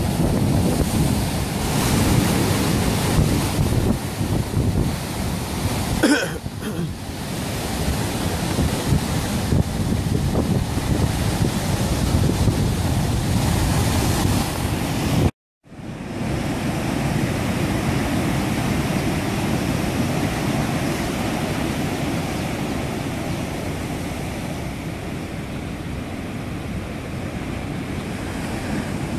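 Heavy sea surf breaking and foaming over black lava rocks: a loud, continuous rush of water, with wind buffeting the microphone. The sound cuts out for a moment about halfway through, then the surf carries on.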